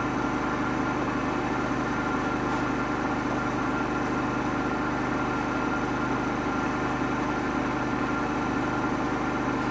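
Samsung washing machine running with a steady motor hum, with no knocking from the drum.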